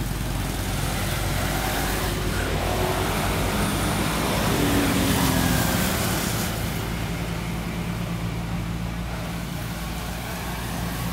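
Motor vehicle engine running steadily nearby, a low drone that swells a little around the middle.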